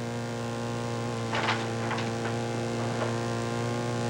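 Steady electrical mains hum with a stack of buzzing overtones on the soundtrack. A few short, soft clicks or scuffs come between about one and three seconds in.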